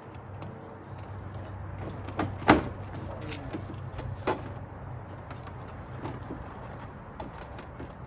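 A steady low mechanical hum, with several sharp knocks and clanks over it, the loudest about two and a half seconds in.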